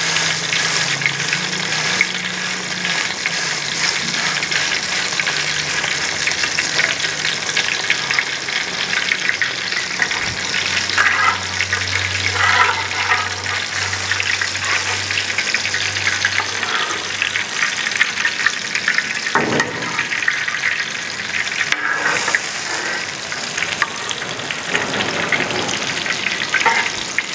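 Beef chapli kababs frying in hot fat-tail sheep (dumba) tallow in a wide, flat iron karahi: a steady, dense sizzle of bubbling fat.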